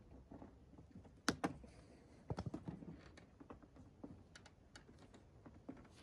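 Scattered sharp clicks and light taps of pliers and wire being worked against a scooter's plastic front panel as the cracked panel is stitched together with wire. The loudest pair of clicks comes about a second in, with a quick run of clicks just past two seconds and a few more ticks later.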